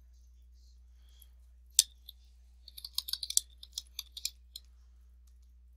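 Typing on a computer keyboard: a single sharp click about two seconds in, then a quick run of keystrokes lasting about two seconds.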